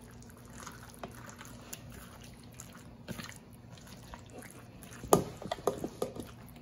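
Chunks of raw beef and pork being kneaded by a gloved hand in a bowl of blended chile marinade: soft, wet squelches, with a quick run of louder wet smacks about five seconds in.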